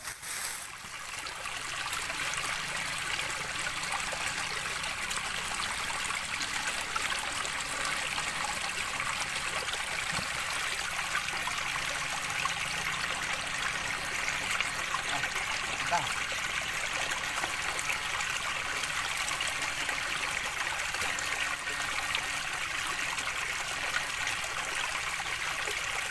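Shallow stream trickling steadily over rocks and stones, a constant babble of running water.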